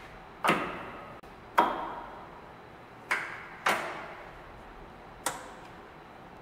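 Five sharp metallic knocks, irregularly spaced, each ringing out briefly: metal striking metal at a lathe's four-jaw chuck and workpiece, as the work is set up.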